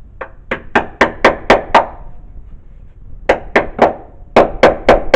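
Hand-hammer blows on metal in three quick runs of about seven, three and four strikes, about four a second, knocking loose a stuck sheet-metal panel on the car's front end.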